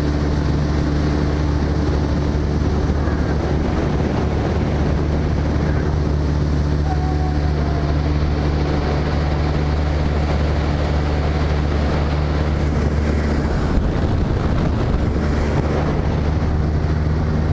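Small motorboat's engine running steadily at cruising speed, a constant low hum, with water rushing past the hull and wind buffeting the microphone.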